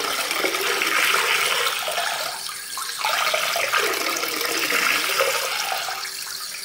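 Running water: a steady splashing rush that swells and eases, fading somewhat near the end, with a faint steady hum under it.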